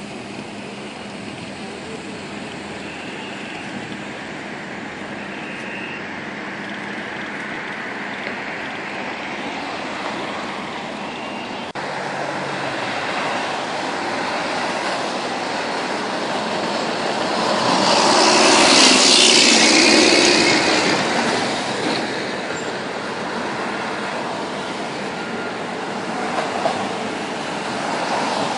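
Road traffic: cars and SUVs driving past on a multi-lane avenue, a steady tyre-and-engine rush. It swells to its loudest a little past the middle as a vehicle passes close, then settles back.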